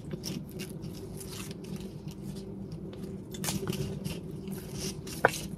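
Dry banana-leaf wrapper crackling and rustling as it is torn and peeled off a bánh gai sticky-rice cake by hand, with a sharp click about five seconds in.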